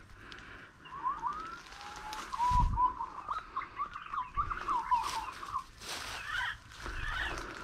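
Birds calling in a quick run of short whistled notes, each slurring up or down, with brief gaps between runs. A couple of low thumps sound underneath.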